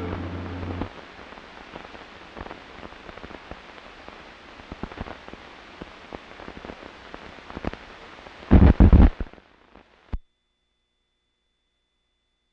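Crackling hiss and scattered clicks of a worn archival film soundtrack, with two loud bursts close together about eight and a half seconds in. The sound cuts out to silence shortly after.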